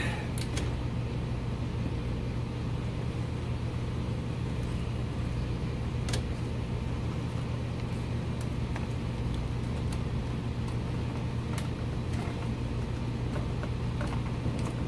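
Steady low hum of background machinery, with a few light clicks and knocks from hands working among the wiring and steering column under a car dashboard.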